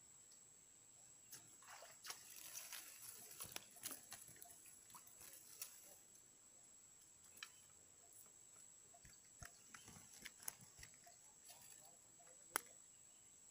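Faint scattered clicks and rustles, busiest in the first few seconds, with one sharp click near the end, over a thin steady high-pitched whine.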